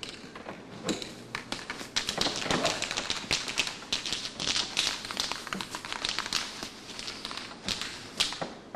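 Scattered clapping from a small theatre audience: a rapid, irregular run of separate claps that starts about a second in, thickens, and dies away near the end.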